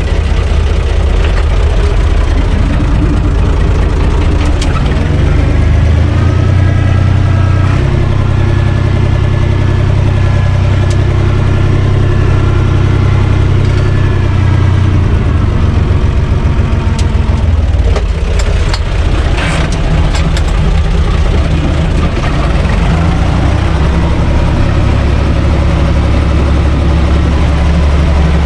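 UTB Universal 445 DT tractor's four-cylinder diesel engine running steadily, heard from inside the cab. A higher whine rides over it from a few seconds in until about halfway through.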